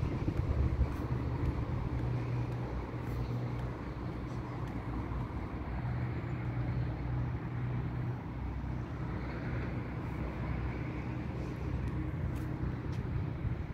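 Road traffic rumbling steadily, a low drone that swells and eases a little without dying away.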